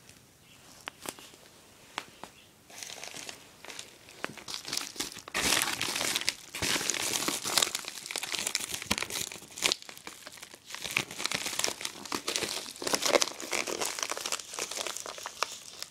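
A plastic shipping mailer crinkling and rustling as hands grip and wrench at its sealed end to open it. A few light clicks at first, then steady loud crinkling from about five seconds in, with a short lull near the middle.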